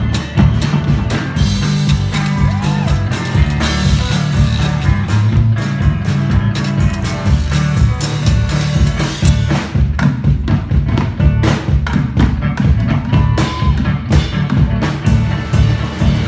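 Live country-blues trio playing an instrumental passage with no singing: a drum kit beating a driving rhythm, with washboard and guitar over it.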